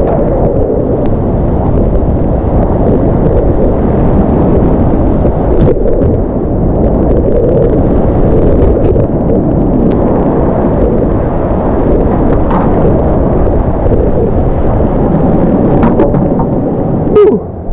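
Loud, steady roar of a flooded whitewater river running high, rushing and breaking around a kayak, heard through a GoPro. Near the end a sharp knock, after which the roar drops away.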